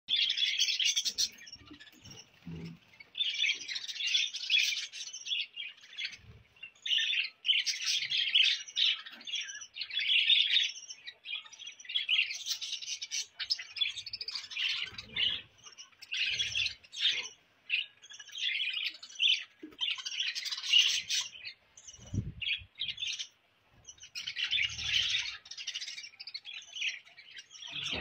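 A flock of budgerigars chirping and chattering in dense bursts of a second or so, with short lulls between them.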